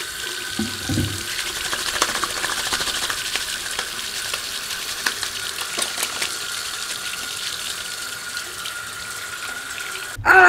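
Bathroom sink faucet running in a steady stream over hands being washed. The water cuts off suddenly near the end.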